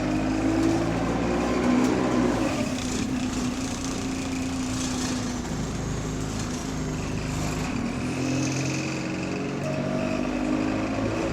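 Diesel bus engine running in limp mode with a faulty turbo. Its pitch drops about two seconds in, then it runs steadily.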